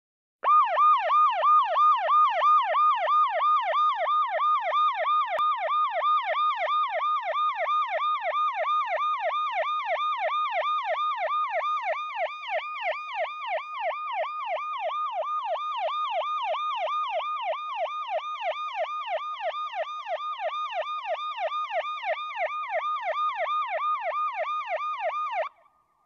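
Electronic siren in a fast yelp, its pitch sweeping up and down about three times a second without a break. It cuts off suddenly near the end.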